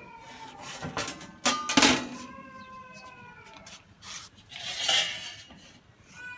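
Metal clanks and knocks from handling a lever espresso machine, loudest about two seconds in, followed by a fading ringing tone and a short rush of noise about five seconds in.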